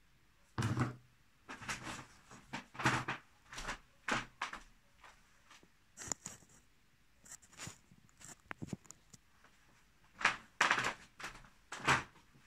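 Handling noises: a string of short, irregular knocks, thuds and rustles as things are moved about and set down, with a louder cluster near the end.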